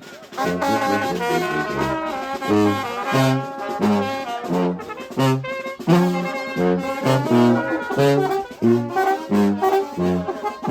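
Brass band playing a huapango: trumpets and trombones carry the melody over a rhythmic pattern of low notes, played live.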